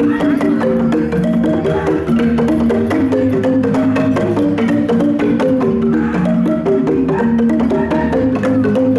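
Wooden marimbas played with mallets, quick repeating melodic patterns of struck wooden bars.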